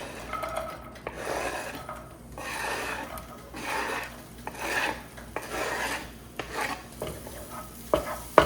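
A kitchen utensil scraping and rubbing against a pan as chopped onion goes into the skillet: repeated rasping strokes, with a couple of sharp knocks of metal near the end.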